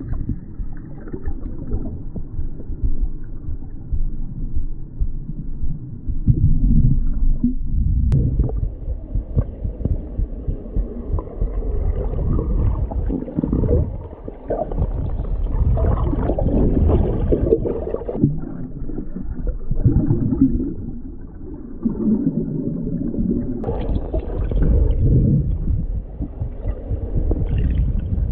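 Muffled, low rumbling and gurgling of moving river water picked up by a camera held underwater, swelling and easing irregularly.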